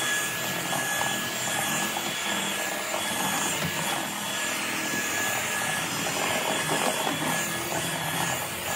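Cordless stick vacuum running steadily with a high motor whine, its powered floor head pushed over a hard laminate floor.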